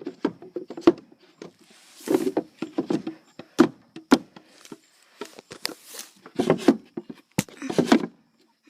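Irregular knocks, clicks and wooden clatter of a chicken coop's wooden door and its fittings being handled, mixed with short low sounds that fit chickens clucking. It stops abruptly near the end.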